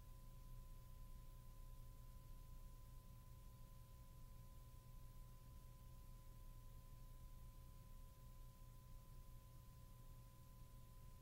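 Near silence: a faint steady low hum and hiss, with two faint steady high tones.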